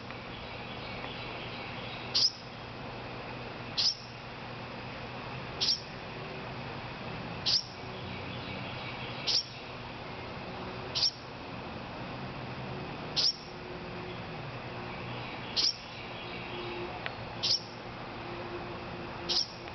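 A fledgling wren, fallen from its nest, giving short, high chirping calls for its parent, about one every two seconds, ten in all.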